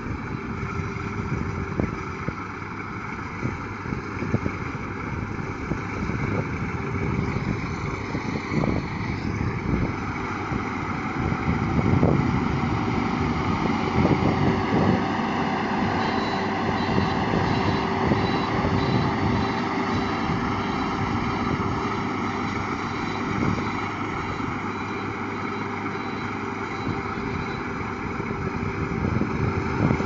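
Rice combine harvester running steadily as it drives through the paddy cutting and threshing rice: a continuous engine and machinery hum with light ticking. It grows louder about twelve seconds in as the machine comes close, then eases off.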